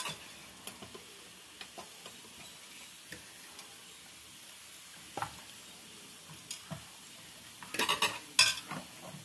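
Hands rubbing a wet chilli-masala marinade into a whole raw chicken skin in a steel bowl: faint squelching and light scattered ticks, with a louder burst of wet squishes and clicks about eight seconds in.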